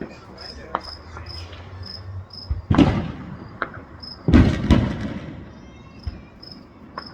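Crickets chirping steadily, about three chirps a second, while fireworks go off: one bang a little under three seconds in and two more in quick succession past the four-second mark, each with a rumbling tail.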